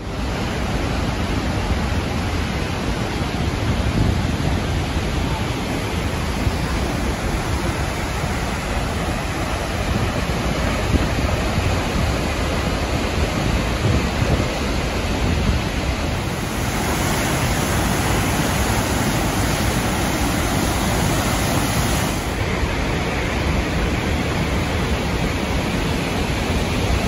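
Rushing whitewater of the Merced River's rapids and of Vernal Fall crashing into its spray, a loud, steady rush of water. The hiss turns brighter for several seconds just past the middle.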